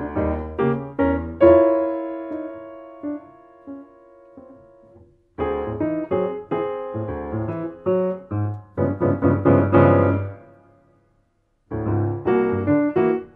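Solo piano playing a jazz-inflected Brazilian instrumental in phrases of chords and runs. About a second and a half in, a chord is held and left to ring out and fade. The playing stops twice: briefly about five seconds in, and for nearly a second about eleven seconds in, before it picks up again.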